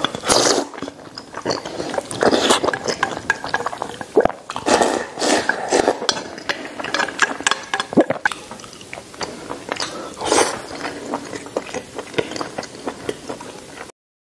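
Close-up eating sounds: a mouthful of braised pork knuckle and rice being bitten, chewed and slurped, with sharp wet mouth clicks, and chopsticks tapping the metal bowl. The sound cuts off abruptly near the end.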